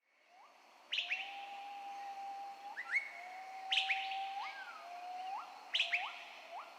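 Birds calling: a long, even whistle that ends in a quick upward flick, repeated several times, with sharp high chirps about every two to three seconds.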